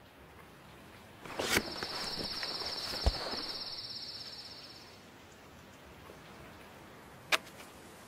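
Quiet handling sounds at a wooden drawer: a short scraping slide about a second in, a sharp knock near the middle and a sharp click near the end. Under them are a faint hiss and, for about three seconds, a high, evenly pulsing trill.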